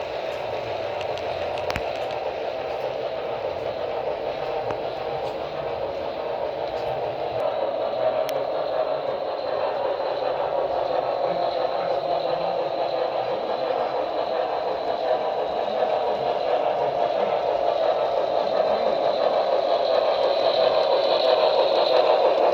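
Model freight train running on a model railroad track, a steady whir and rattle of motor and wheels that grows gradually louder as it comes closer.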